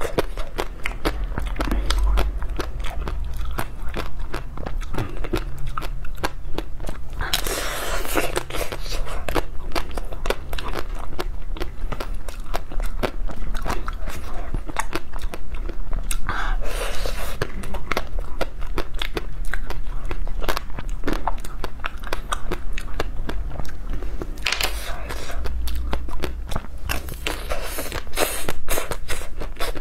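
Close-miked eating of ice cream bars: steady wet chewing and mouth clicks, with a few louder bites spread through.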